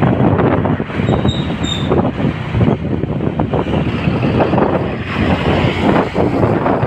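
Bus running with dense, loud road and engine noise, and two short high squeaks about a second and a half in.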